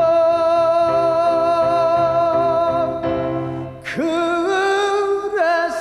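A male singer in Korean sori style holds one long, high note of a song. About four seconds in, his voice scoops up into a new wavering note, with a piano repeating short notes beneath.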